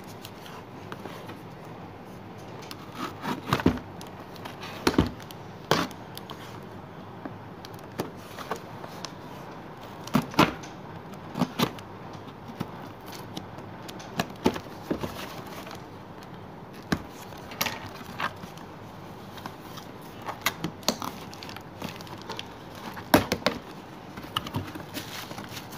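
Cardboard shipping box being handled and opened by hand: scattered knocks, taps and scrapes of card, with clusters of sharper clicks a few seconds in, around ten seconds in, and near the end, over a steady faint hiss.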